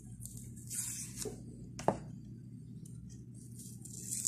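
A kitchen knife scraping and peeling the dry, papery skin off an onion: short scratchy rasps about a second in and again near the end, with one sharp click a little under two seconds in. A steady low hum runs underneath.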